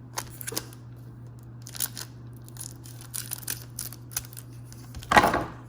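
Light clicks and crinkles of trading cards and a card-pack wrapper being handled, with a louder rustle near the end. A low steady hum runs underneath.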